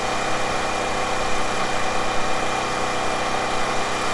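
An engine running steadily at idle, a constant even drone with no change in speed.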